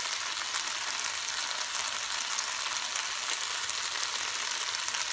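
Rice frying in achiote oil in a stainless steel sauté pan on high heat: a steady sizzle with fine crackles.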